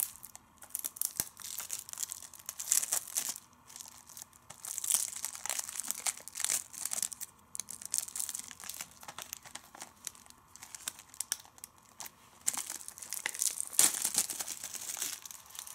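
Clear plastic shrink-wrap being torn and peeled off a Blu-ray case, crinkling in irregular bursts that come and go.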